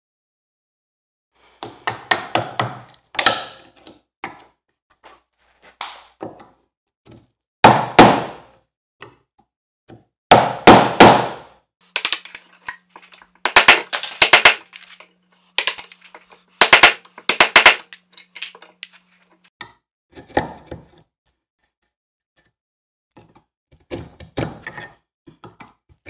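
Mallet striking a chisel into wood in clusters of sharp blows with short pauses between them, chopping out the waste in the middle of a castle joint.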